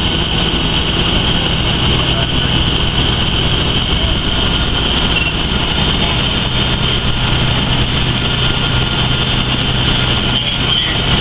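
Fire truck's diesel engine running steadily at the fire scene, a constant low drone with a steady hiss above it.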